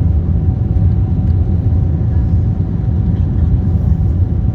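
Airbus A340 jet noise: a loud, steady low rumble with a faint constant hum above it.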